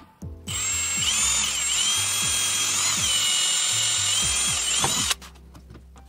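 Cordless drill whining at speed as its bit cuts a hole through a plastic engine-bay cover, its pitch dipping a couple of times as the bit bites. It starts about half a second in and stops suddenly about five seconds in.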